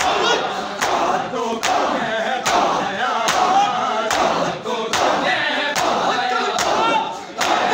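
Group of men chanting a noha together while beating their chests in unison (matam), sharp slaps landing in a steady rhythm about once every 0.8 seconds.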